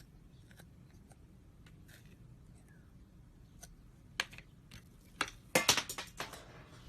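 Objects being handled: a few faint clicks, then a quick cluster of sharp clicks and crackles from about four seconds in, loudest near the end.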